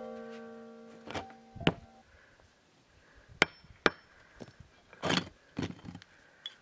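Hammer strikes on a concrete patio block, knocking off its corners along a circular grinder cut: a few sharp hits with rough knocks and scrapes of broken concrete pieces between them. A held musical chord fades away in the first two seconds.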